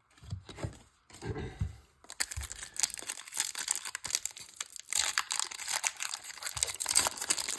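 Foil wrapper of a Pokémon booster pack crinkling and tearing as it is handled and opened, a continuous crackle that starts about two seconds in.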